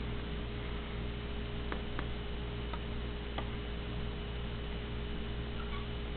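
Steady electrical hum with a held tone and a low, regularly pulsing throb. A few faint clicks come about two and three and a half seconds in.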